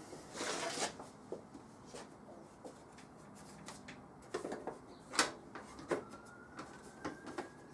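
Plastic motorcycle side panels being handled and fitted on: scattered light knocks and clicks, with a brief scraping rustle about half a second in and a couple of sharper knocks around the middle.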